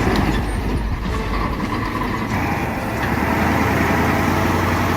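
Heavy truck's diesel engine running hard, a steady low drone.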